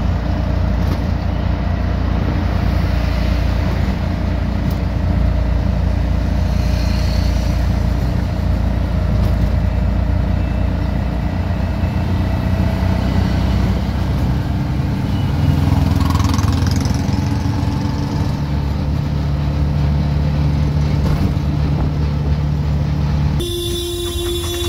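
Steady low rumble of wind, road and engine noise heard from inside an open-sided vehicle moving through city traffic. Shortly before the end the sound cuts abruptly to a different, slower traffic scene.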